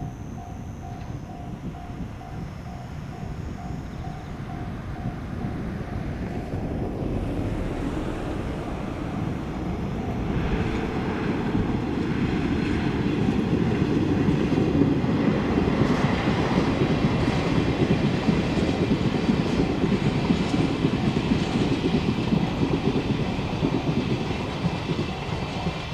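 Train on the Hokuriku Main Line passing a level crossing: its rumble and wheel clatter build over several seconds, peak in the middle and ease off near the end. Through it the crossing warning bell rings steadily about twice a second.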